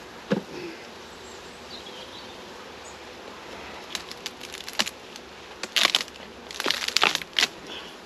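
Honeybees humming around an open hive, with a wooden knock just after the start, then clicks and loud cracking and scraping about six and seven seconds in as a wooden honey super is prised loose and lifted off the queen excluder.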